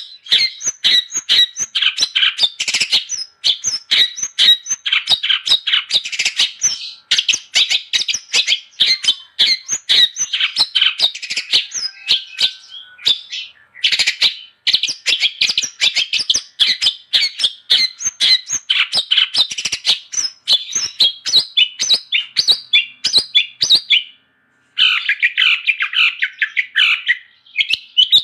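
Long-tailed shrike (cendet) singing vigorously: a dense, rapid stream of sharp chirps and squawky notes, broken by two short pauses, about 13 seconds and about 24 seconds in.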